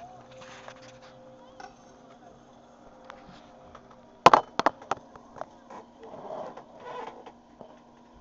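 A few sharp knocks about four seconds in, a kitchen knife being set down on a wooden cutting board. Plastic wrapping rustles briefly, over a steady low hum.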